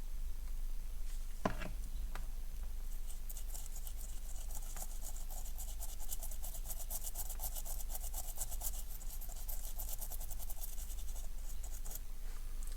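Brisk, rapid scratching and rubbing on a small hard object, starting about three seconds in and stopping near the end, after a single light tap. A steady mains hum runs underneath.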